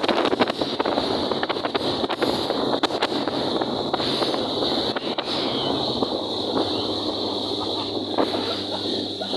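Speedboat's outboard motor running steadily at speed, under the rush of the wake's churning water and wind buffeting the microphone in gusts.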